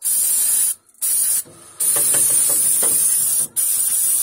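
Aerosol spray can hissing in four bursts, the longest about a second and a half in the middle.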